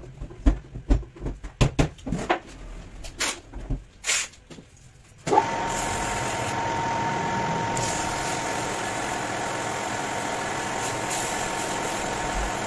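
A string of sharp metal knocks and clicks as the workpiece is set in the lathe chuck. About five seconds in, the metal lathe switches on and runs steadily, its motor giving a steady whine.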